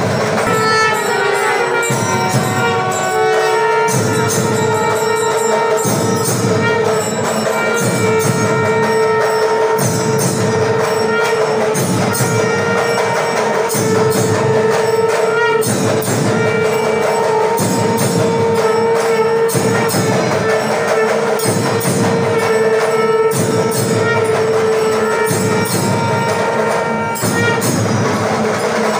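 Temple festival music: one long held note over a slow, even drum beat, with jingling, ringing percussion on top.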